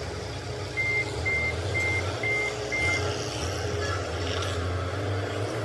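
A vehicle backup alarm beeping five times, about two beeps a second, over the steady low running of an engine.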